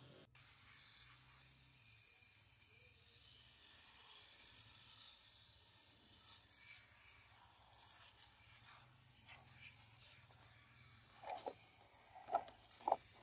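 Faint steady hiss, then near the end four light knocks and clicks as the metal body and parts of a diecast model car are handled in a plastic tub.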